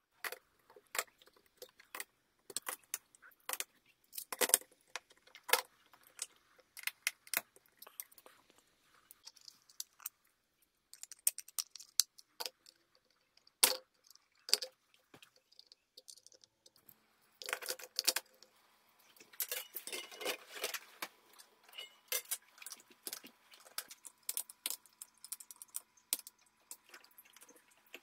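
Irregular clicks and clinks of plastic modular circuit breakers and a distribution block being handled and fitted onto a steel DIN rail, with a screwdriver working the terminal screws.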